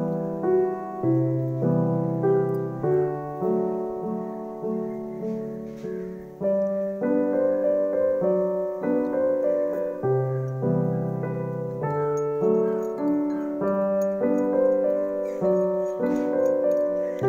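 Piano music: a flowing melody over low bass notes.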